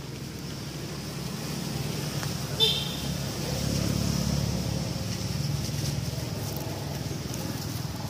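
A baby macaque gives one short, high squeak about two and a half seconds in, over a low steady rumble.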